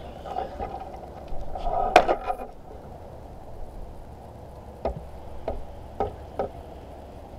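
Plastic handling noises while cabin air filters are fitted into their housing: a short scraping rustle about two seconds in, then four light, sharp clicks near the end.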